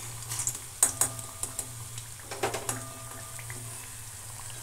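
A slotted metal spoon knocking and scraping against an aluminium kadai as fried dumplings are lifted out of hot oil, with a few sharp clinks, the loudest about a second in, some leaving a brief ring. The oil bubbles faintly underneath, over a steady low hum.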